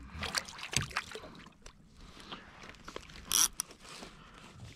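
Scattered light clicks and scrapes from handling fishing line, leader and a conventional reel on a plastic kayak, with one brief hiss about three and a half seconds in.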